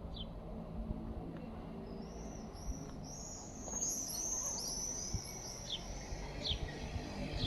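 Small songbird singing a rapid run of high, arched chirps that starts about two seconds in and fades after about five seconds, over steady low background noise.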